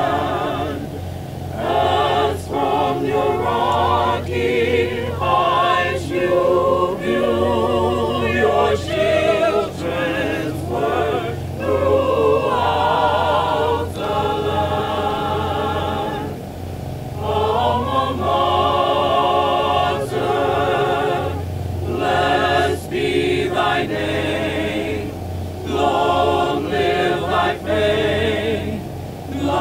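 A group of women singing a song together, their held notes wavering with vibrato, phrase after phrase with short breaks between.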